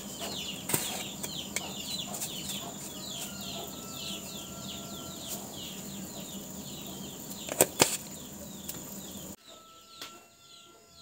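Water boiling hard in a steel pot on a gas burner: a steady hiss and hum with rapid bubbling ticks, and two sharp clicks about seven and a half seconds in. Near the end the sound drops to a much quieter room.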